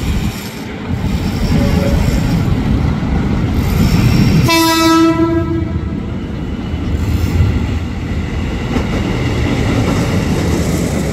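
JR 205 series commuter electric train arriving, its wheels and running gear making a steady rumble. It sounds one horn blast of a little over a second, about four and a half seconds in.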